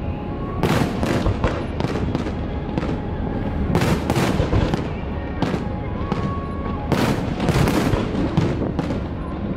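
Fireworks display: shells bursting in a stream of sharp bangs, at times several a second, each trailing off in echo, over a constant low din.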